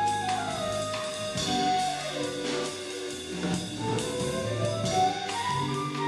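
Live jazz sextet playing: drum kit with cymbals and upright bass under a melody line whose notes slide down and back up in pitch.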